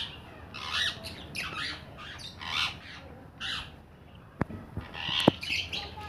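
Caged parrots squawking: a string of short, harsh calls in quick succession, with two sharp clicks near the end.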